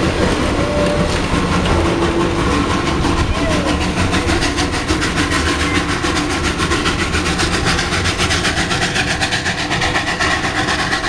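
Heritage train hauled by the steam locomotive 310 093 pulling out of the station, its old wooden carriages rolling past and away. A fast, even beat sets in about two seconds in and carries on, with a few voices among the passing coaches.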